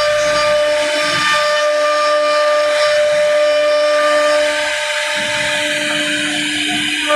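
CNC router spindle running at steady speed with a constant high whine, its bit cutting a flower pattern into wood with a hiss of cutting noise; it eases off slightly about four and a half seconds in.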